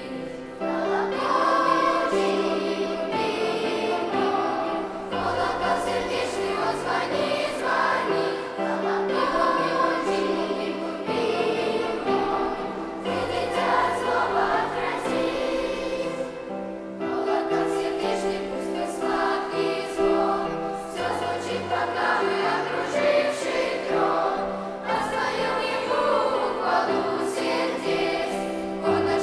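Children's choir singing a Russian-language Christian song over accompaniment with held low notes, in phrases with brief pauses between them.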